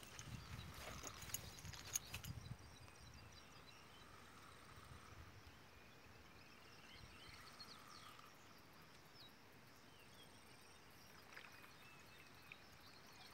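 Near silence: faint outdoor ambience by open water, with scattered faint high chirps. A few soft knocks and some low rumble come in the first two or three seconds.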